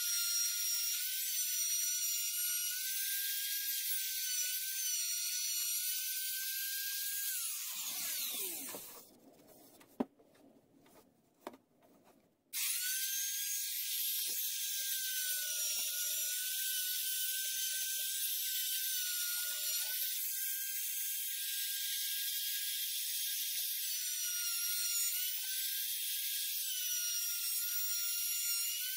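Compact electric wood router running at full speed, a steady high-pitched whine that wavers slightly in pitch as it cuts along the edge of a wooden plank. About seven seconds in it is switched off and spins down with a falling whine. Two sharp clicks follow in the quiet, and the router starts again abruptly about five seconds later and runs on.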